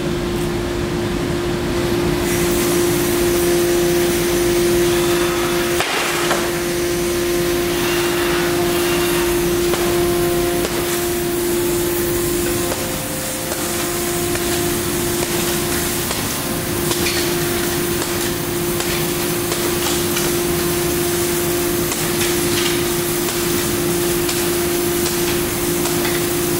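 Hammer blows on a laminated security-glass pane of two 5 mm tempered sheets with a 1.52 mm interlayer, irregularly spaced and starting about six seconds in; the tempered glass shatters into many small pieces while the laminate holds. A steady machine hum sounds underneath.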